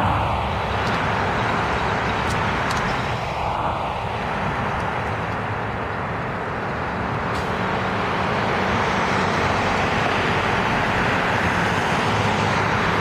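Steady street traffic noise: an articulated city bus driving away, with cars passing by.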